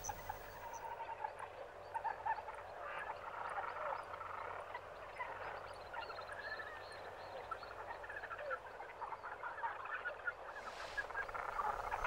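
Faint chorus of many small croaking and chirping animal calls overlapping, with a faint high tick repeating about twice a second.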